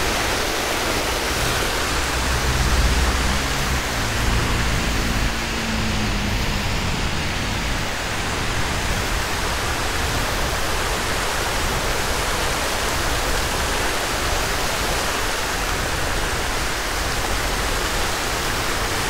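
Steady rush of falling water from an outdoor fountain, an even hiss with no breaks. A low rumble runs underneath for the first several seconds, then fades.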